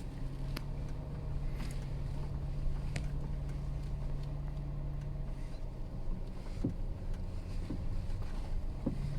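Inside the cabin of a Geely Coolray driving over rough ground: a steady low drone from the engine and road, with a handful of sharp light knocks at irregular moments. The knocks are the tapping from the left door over bumps, which the owner takes for a door not sitting quite tightly.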